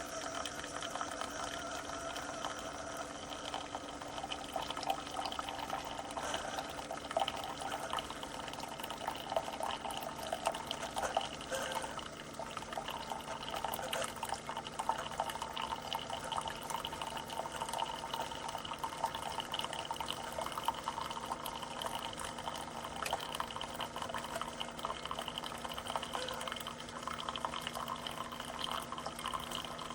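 Keurig K-Express single-serve pod coffee maker brewing: a steady pump hum, with hot coffee streaming and spluttering into the cup.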